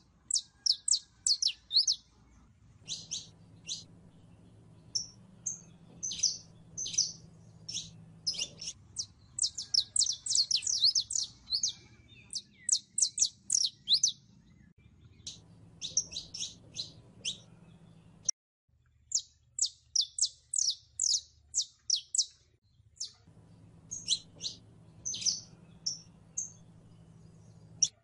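Saffron finch (Sicalis flaveola) singing: phrases of quick, high, sharp chirps and fast trills separated by short pauses. A faint low hum runs underneath, cutting out abruptly about eighteen seconds in and coming back later.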